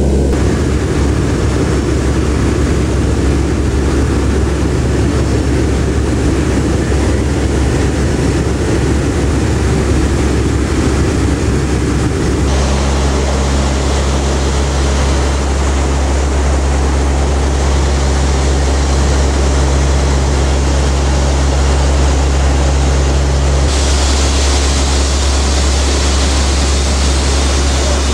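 Steady loud drone of a Lockheed C-130 Hercules's four turboprop engines and propellers, heard from inside the aircraft in flight. The tone shifts abruptly twice, about 12 and 24 seconds in.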